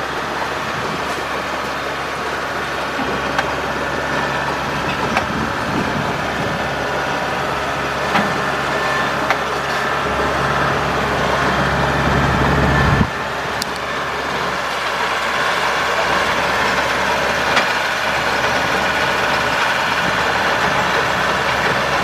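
Kubota DC70 combine harvester's diesel engine running steadily as the crawler machine edges down steel ramps, with occasional sharp metal clanks from the tracks on the ramps. Its low drone builds louder, then drops off suddenly about two-thirds of the way through.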